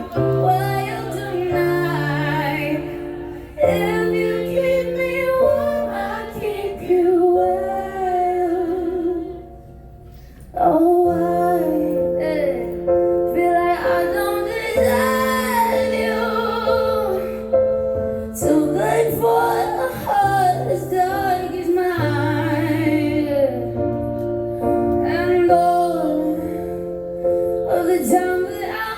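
Woman singing live with her own solo piano accompaniment, the piano playing held chords under the melody. There is a brief quieter lull about nine seconds in.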